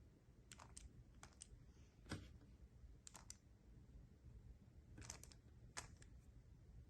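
Faint clicks of a 3x3 Rubik's cube's plastic layers being turned by hand, in short groups of a few turns with pauses between, as the cube is scrambled.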